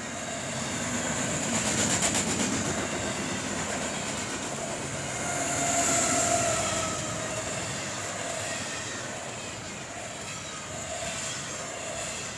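Double-stack intermodal freight train passing close by, steel wheels rumbling and clicking over the rails. It swells as a mid-train diesel locomotive goes by about six seconds in, adding a steady engine tone.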